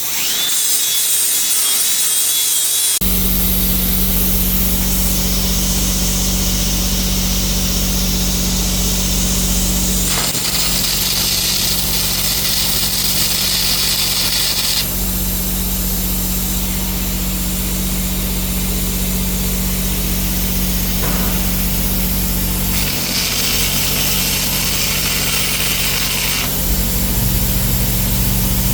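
Angle grinder with an abrasive wheel grinding down old stitch welds on steel plate, the grinding noise rising and falling as the wheel is pressed on and eased off, over a steady low engine hum.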